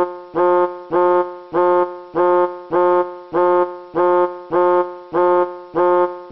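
Keyboard music: a single electric-piano-like note repeated at the same pitch about twice a second. Each note starts sharply, holds briefly and then fades away.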